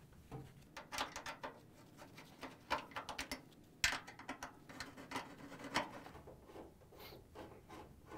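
Phillips screwdriver turning screws out of an LG dryer's sheet-metal front panel: an irregular run of small scratches and clicks as the bit grinds in the screw heads, with one sharper click about four seconds in.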